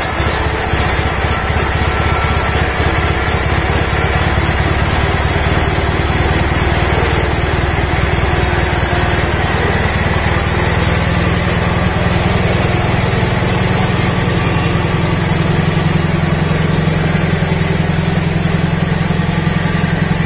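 1979 John Deere 317 garden tractor's Kohler twin-cylinder engine running steadily at a low, near-idle speed as the tractor is driven. A faulty throttle leaves it unable to idle up. The engine note shifts slightly about halfway through.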